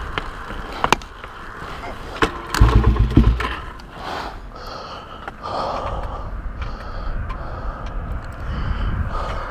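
Suzuki DR-Z400SM being push-started. After a couple of sharp clicks, there is a short, loud, low chugging burst near three seconds in as the rolling bike turns the single-cylinder engine over without it catching. After that there is only rolling and wind noise. The engine is hard-starting after sitting unridden.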